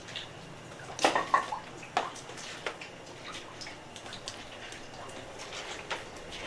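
Water dripping: scattered, irregular drips and taps, with a cluster of louder knocks between about one and two seconds in.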